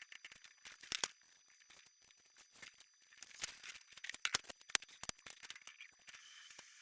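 Irregular light clicks, taps and scratches of hand work on a foam board sheet, as when drawing and measuring lines on it, busiest from about three to five seconds in.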